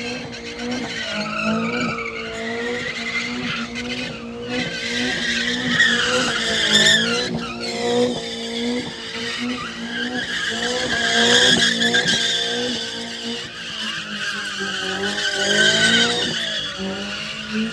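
A car's engine revving and holding high while its tires squeal and skid, as in burnouts or donuts.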